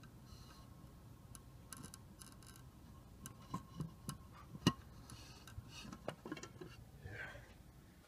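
Scattered small ticks and taps at irregular intervals over a low steady rumble, with one sharper knock about halfway through.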